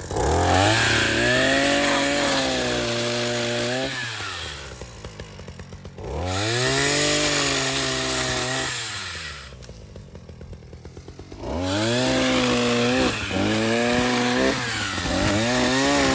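Proyama 42.7cc two-stroke pole saw engine revved to full throttle in four bursts of a few seconds each, dropping back to idle between them.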